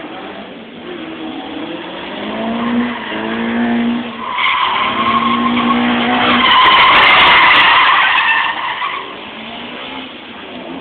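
A drift car's engine revving with its pitch rising and falling, then its tyres squealing loudly for about five seconds as the car slides sideways. The squeal is loudest around the middle and dies away near the end, leaving the fainter engine.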